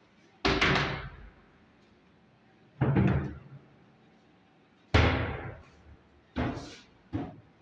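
Kitchen cabinet doors being shut: five sharp knocks, each dying away over about half a second, the last two quicker and quieter.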